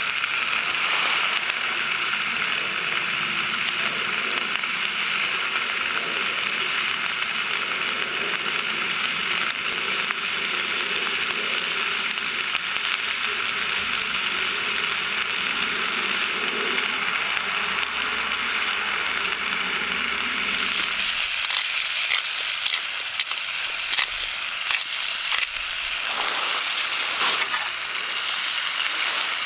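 Food sizzling in a hot pan, a steady frying hiss. About 21 seconds in, a lower rumble under it drops away, and scattered crackles and pops follow.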